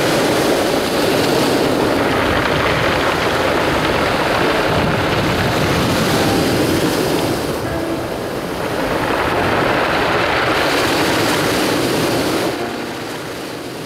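Sea waves washing in and out over a beach of smooth, round mongdol pebbles, the water rushing through the gaps between the stones. It comes in two surges, easing off about eight seconds in and again near the end.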